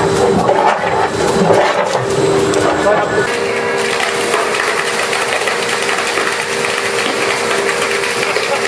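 Industrial machinery running with indistinct voices for about three seconds. Then, after an abrupt change, a steady hissing gush of ice slurry and water spraying out of a pipe outlet into a plastic bin, over a steady machine hum.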